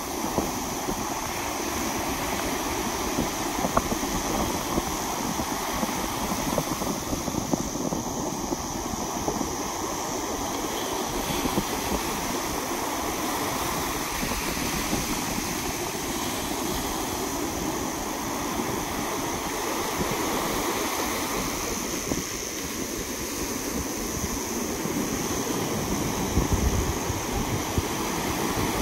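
Ocean surf: small waves breaking and washing in foam over a shallow sandbank, a steady rushing wash.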